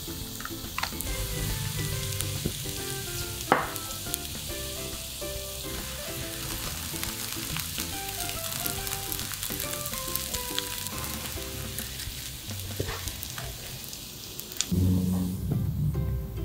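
Egg and grated potato frying in butter in a pan, a steady sizzle, with one sharp click about three and a half seconds in. The sizzle stops near the end, and light background music carries on.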